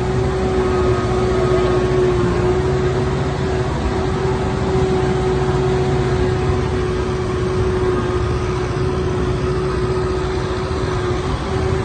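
Kubota rice combine harvester running steadily under load: a constant engine drone with a steady whine held above it.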